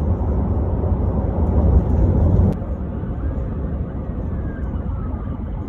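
Steady road and engine noise inside a car cabin at highway speed, a dull low rumble that drops suddenly in level about two and a half seconds in.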